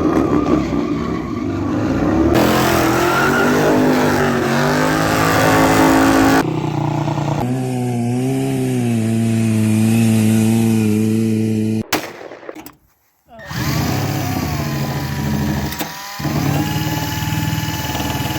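Engine revving in a string of short, abruptly cut segments, its pitch rising and falling, with a brief drop-out about twelve seconds in.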